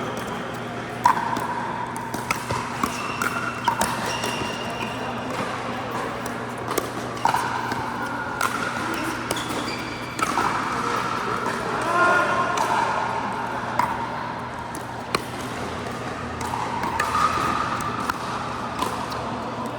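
Pickleball paddles striking the hard plastic ball on an indoor court: sharp, irregular pops, a few of them loud, over a background of distant voices.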